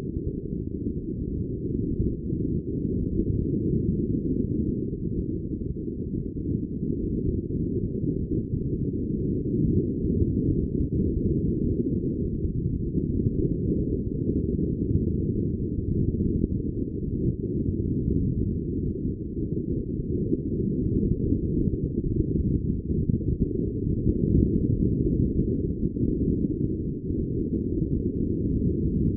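Steady, muffled low rumble of wind buffeting the microphone aboard a sailing yacht under way.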